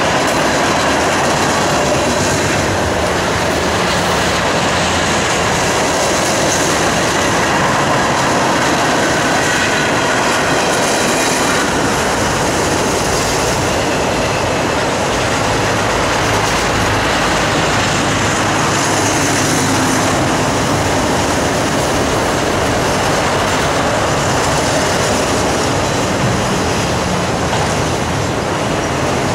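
Freight train of autorack cars rolling steadily past at close range: a continuous loud rumble and clatter of steel wheels on the rails.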